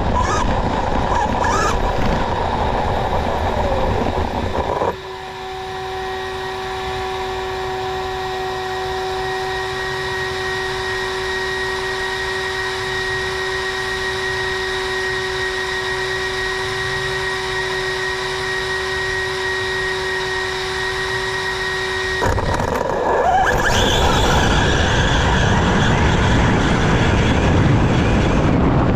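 Fifth-scale electric RC truck with a TP 1010KV brushless motor running flat out across grass, then stopped with only a steady electronic whine for most of the middle. About 22 seconds in it launches again, and the whine rises as it accelerates to high speed.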